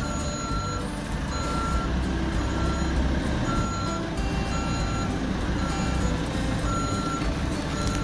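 Fermec backhoe loader reversing: its back-up alarm beeps about once a second over the steady running of its diesel engine.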